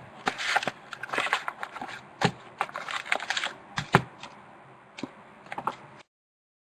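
Crackling, crinkling and clicking of card-box packaging being handled and opened, with irregular sharp clicks. The sound cuts off abruptly about six seconds in.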